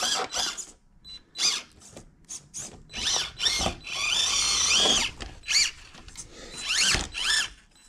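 Electric motor and gear drive of an FMS FCX18 K10 1/18-scale RC crawler whining in short throttle bursts, the pitch rising and falling with each burst. There is a longer push of throttle about four seconds in as the truck works up a rock ledge under load.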